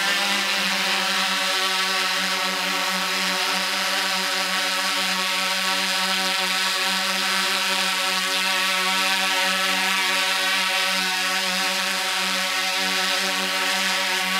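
Quadcopter drone's propellers and motors whirring at a steady hover, a constant high hum.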